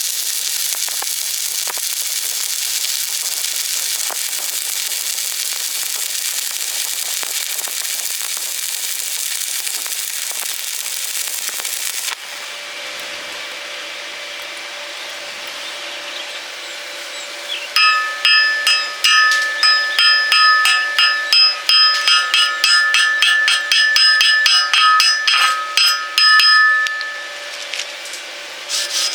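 Electric arc welding: the arc crackles and sizzles steadily, then cuts off suddenly about twelve seconds in. After a quieter stretch, rhythmic scraping strokes on ringing steel start, about two a second, then stop near the end.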